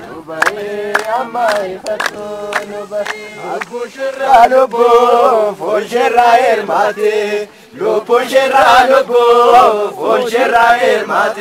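A group of people singing a repeated, chanted refrain together, men's and women's voices, with a brief pause between phrases about two-thirds of the way through.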